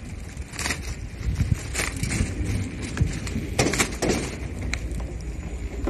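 Handling noise from a handheld camera being swung about: a low rumble with several sharp knocks and rattles.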